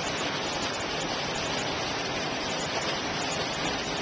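Creek water rushing steadily, an even hiss with no distinct splashes.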